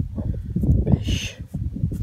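Wind buffeting the microphone in irregular low rumbles, with a brief rustle about a second in.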